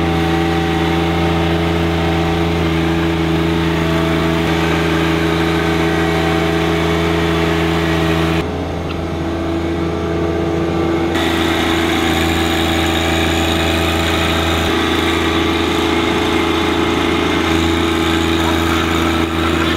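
John Deere 1025R compact tractor's three-cylinder diesel engine running at a steady speed while the tractor works a rear box blade through loose dirt.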